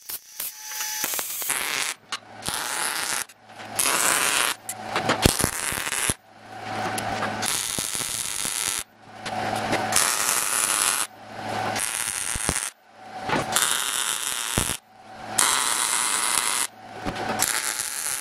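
Wire-feed welder laying short beads on steel plate: the arc's steady crackling sizzle comes in about ten runs of one to two seconds each, broken by brief pauses, with a low hum from the welder while the arc is lit.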